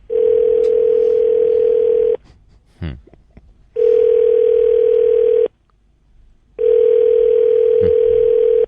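Telephone ringback tone heard down a phone line while a call is put through to another extension: three long, steady rings of about two seconds each, with short pauses between them.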